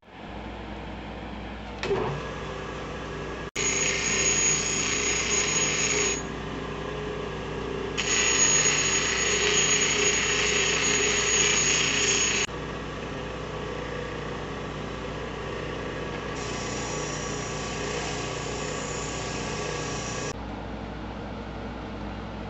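A power tool's motor running steadily, with three stretches of harsh, high hissing of a few seconds each as the tool bites into the work.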